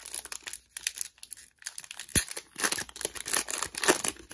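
Foil hockey card pack wrapper crinkling as it is torn open and the cards pulled out, with one sharp click about two seconds in; the crinkling is loudest near the end.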